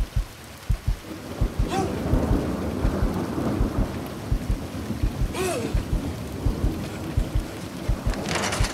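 Rain with thunder rumbling, over a run of dull low thumps, two or three a second.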